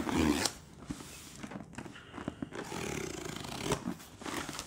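Snap-off utility knife slitting packing tape along a cardboard box seam: a loud scraping rip in the first half-second, then quieter scraping and cutting with a few small clicks.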